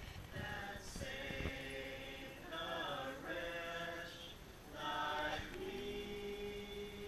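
A group of voices singing together unaccompanied, with long held notes.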